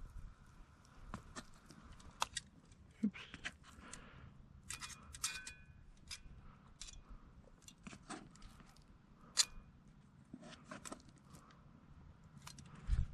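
Irregular small clicks and light metallic clinks of gear being handled, some with a brief ring.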